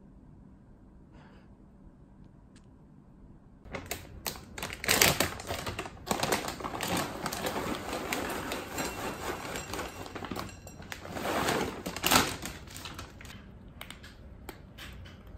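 Dry cat kibble poured from its bag into a glass bowl: a dense rattle of pellets hitting glass with the rustle of the bag. It starts about four seconds in and stops about thirteen seconds in. Fainter, scattered crunching and clicks follow as the cats eat from the bowl.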